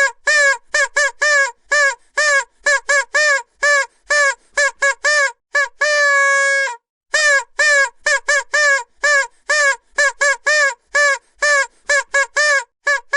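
Vuvuzela blown in a rapid series of short blasts, a few per second, each bending up at the start and down at the end, with one longer held note about six seconds in.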